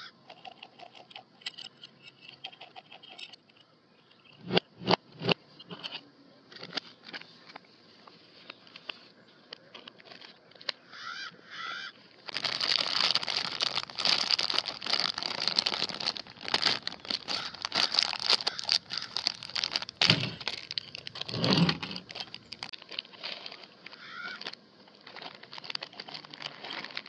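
Plastic candy bag crinkling and rustling in the hands for about ten seconds, the loudest sound, with scattered small clicks of candy and packaging being handled and a few sharp knocks about five seconds in.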